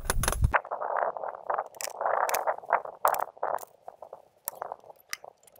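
Handling sounds at the back of a pop-up truck camper: sharp clicks among irregular scraping and rustling bursts as its latches are undone and the rear door is opened, dying away near the end. Wind rumbles on the microphone until about half a second in, then cuts off.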